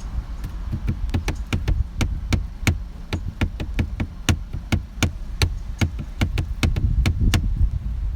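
A quick, uneven series of sharp knocks or taps, about three to four a second, over a steady low rumble.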